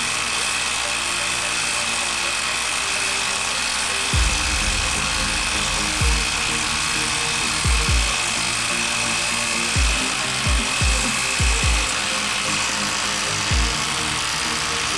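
Hilti 12-volt cordless impact driver hammering steadily as it drives a large lag screw into a wooden stump, with a set of short low thumps at uneven intervals from about four seconds in. Electronic music plays over it.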